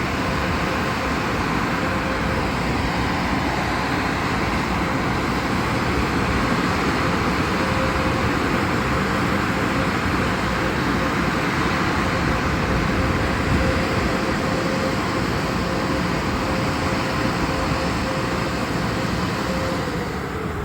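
Automatic car wash equipment running in a wash bay: a steady rush of spraying and machinery with a constant hum, which starts to wind down near the end.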